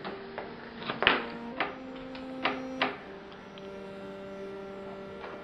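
A low drone of held tones that shifts pitch a couple of times, under a series of about seven sharp knocks and clicks; the loudest knock comes about a second in.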